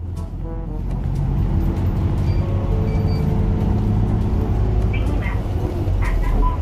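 Steady low rumble of a bus engine, heard from inside the passenger cabin.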